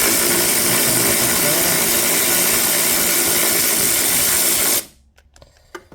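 A power tool motor running steadily for about five seconds, then cutting off abruptly.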